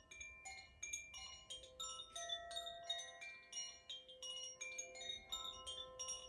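Koshi chimes played by hand: the clapper inside the bamboo tube strikes the tuned metal rods in quick, irregular succession, a few strikes a second, their bright tones ringing on and overlapping.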